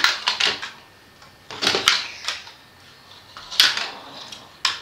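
Hard plastic Grimlock transformer toys clacking against each other and the wooden floor as they are made to fight: sharp knocks that come in small groups about four times.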